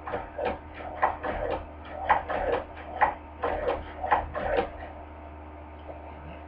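Hand-crank cobbler sewing machine stitching, its mechanism clicking at about three strokes a second, then stopping a little over four seconds in. A low steady hum runs underneath.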